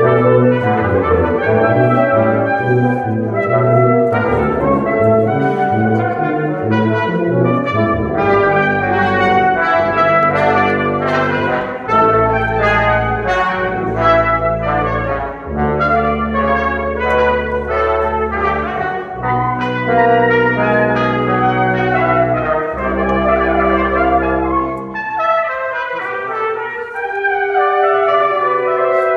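Brass quintet of two trumpets, French horn, trombone and tuba playing a concert piece, many short notes at first, then long held low notes in the bass through the middle before the quicker figures return near the end.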